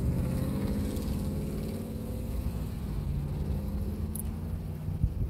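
A car engine hum, steady and low, slowly fading over a few seconds, with a single sharp click about five seconds in.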